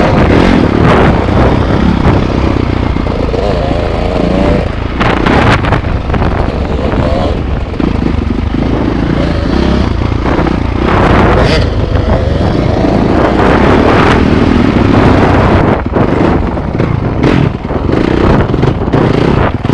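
Dirt bike engines revving and easing off as they climb the trail, the pitch rising and falling, heard from a helmet-mounted camera over a steady low rumble.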